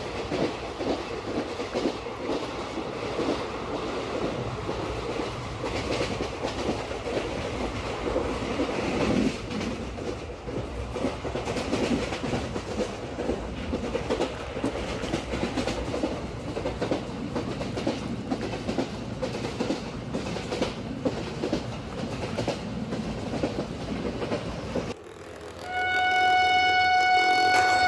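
Train-running sound effect: wheels rumbling and clicking steadily over rail joints. After a sudden cut near the end, one steady horn blast of about two seconds.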